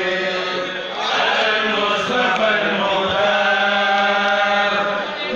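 Islamic religious chanting: voices holding long, drawn-out notes, with a brief dip in level about a second in.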